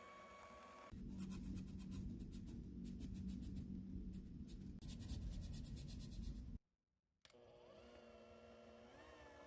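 Small electric kitchen mixer motor running steadily, with fast rhythmic ticking from the beaters in the bowl. It starts about a second in and cuts off abruptly at about six and a half seconds.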